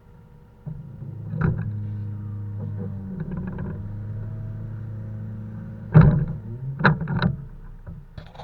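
Heavy diesel truck engine running steadily, with several knocks and clunks from the log unloading, the loudest about six seconds in and two more just after.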